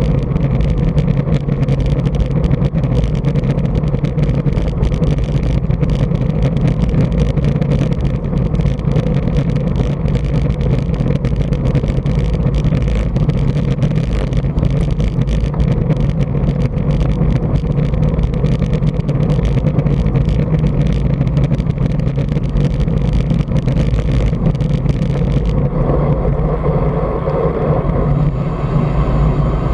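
Steady wind buffeting and rushing over a bike-mounted action camera's microphone at riding speed, mostly a low rumble. A few seconds before the end its high hiss drops away and the sound turns duller.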